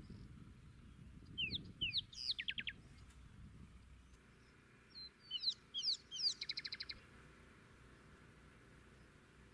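A small songbird singing two short phrases a few seconds apart. Each phrase is a handful of quick, high, downward-slurred whistles ending in a fast run of repeated notes.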